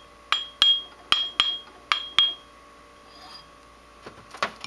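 An intact grinding wheel hung loosely on a rod, tapped six times in three quick pairs with a screwdriver in a ring test. Each tap gives a short, clear ring at one high pitch, the sign of a wheel with no cracks. Near the end come a couple of duller knocks without the ring.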